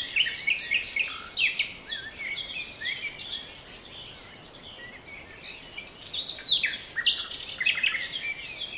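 Small songbirds chirping, many short high calls overlapping, a little sparser and quieter midway.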